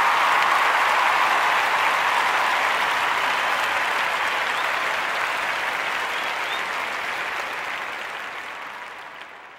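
Audience applause, a dense steady clapping that slowly fades out toward the end.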